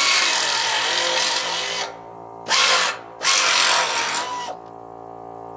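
Handheld power tool cutting a notch into the edge of a corrugated metal roofing sheet. It runs in three bursts, each a harsh hiss with a thin whine: one of nearly two seconds, a brief one, then one of about a second.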